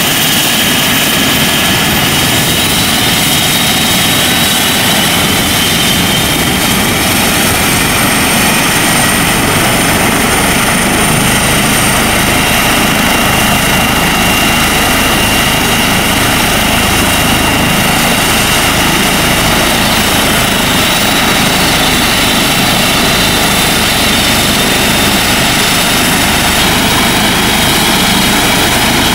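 Eurocopter EC135 helicopter's twin turboshaft engines and rotors running steadily on the ground before take-off: a high turbine whine over a loud, even rush of rotor noise.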